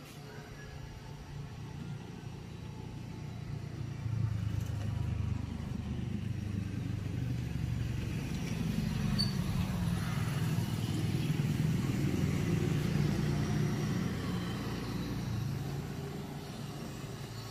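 Motor vehicle engine running in the street, a low rumble that swells louder toward the middle and eases off near the end.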